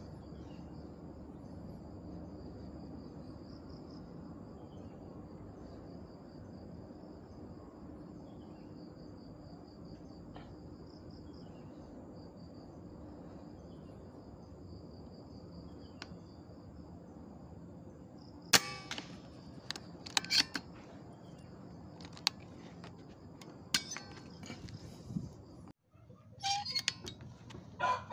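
Insects buzzing steadily at a high pitch, then about two-thirds of the way through one sharp crack of a scoped air rifle shot, followed by a few lighter clicks.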